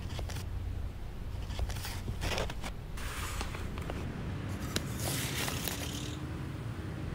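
Paper rustling and crinkling as a sheet is handled, in short bursts about one and a half seconds in and again near five seconds, over a low steady hum.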